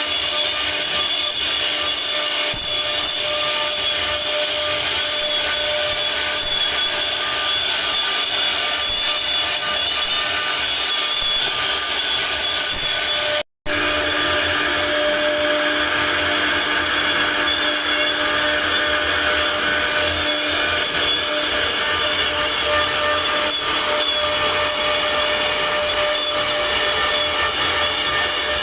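CNC router spindle carving wood: a steady high whine over a continuous rasping cutting noise. The sound cuts out for a moment about halfway through.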